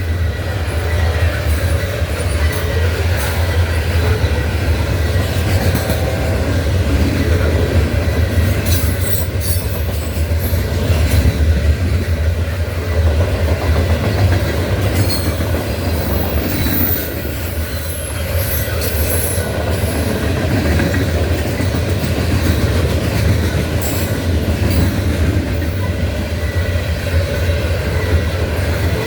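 Norfolk Southern loaded coal train rolling past: a steady heavy rumble from the cars, with scattered clacks over the rail joints and brief high-pitched wheel squeals.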